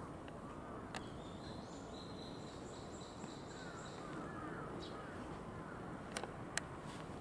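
Outdoor background noise with faint bird chirps and a higher, steadier call in the middle. There is one sharp click about a second in and two more, the loudest sounds here, near the end.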